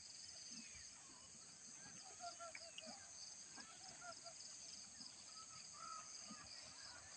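Faint outdoor ambience: a steady, high-pitched buzz of insects with scattered short chirps of birds calling.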